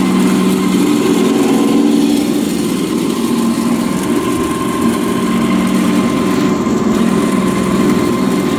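Pellet mill running steadily while extruding tofu cat litter pellets: an even machine hum with a thin steady whine above it.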